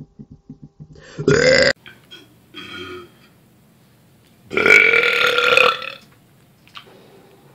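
A person burping loudly twice. The first burp is short and cuts off abruptly. The second, bigger one comes about halfway through and lasts more than a second. Before the first burp there is a quick run of soft clicks.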